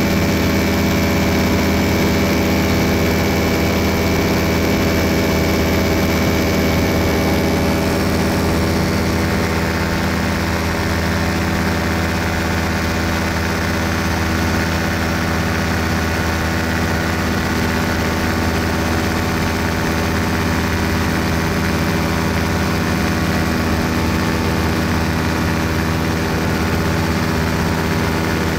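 Small aircraft engine running steadily in flight, heard from on board as a loud, even drone of many low tones, with a slight shift in its note about a quarter of the way in.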